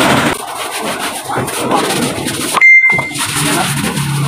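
Brush scrubbing and sloshing soapy water around the inside of a rubber tyre-basin. A short, high, steady beep cuts in about two and a half seconds in and is the loudest sound.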